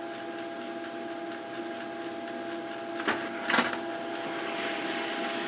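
Desktop printer whizzing up to print: a steady whine of several tones, with two clicks about three seconds in.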